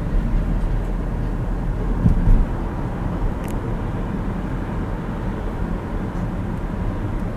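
Steady road and engine noise of a car being driven through city streets, heard from inside the car.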